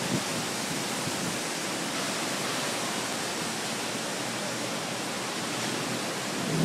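Heavy thunderstorm rain pouring down in a steady, even hiss.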